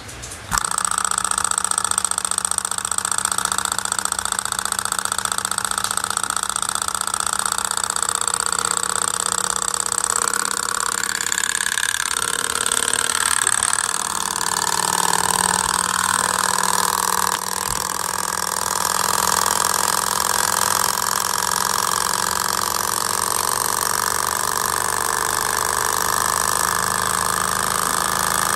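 Small walking-beam Stirling engine, heated by a spirit burner, starting about half a second in and then running fast and steadily with a rapid, even mechanical clatter from its beam, crank and piston linkage.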